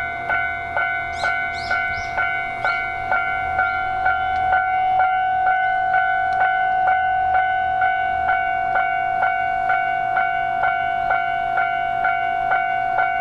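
Japanese railway level-crossing warning bell ringing in a steady rapid repeat, about two strokes a second, under the low rumble of a passing freight train that fades out about halfway through. A few brief high squeals come in the first few seconds.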